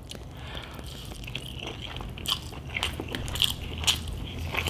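Close-miked chewing and biting of food, with a run of short crisp crunches and clicks starting about halfway through.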